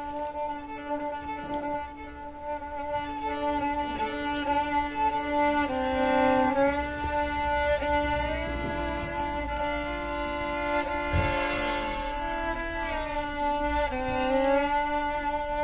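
Solo violin playing slow, long-held notes, with a change of pitch about six seconds in and again near the end.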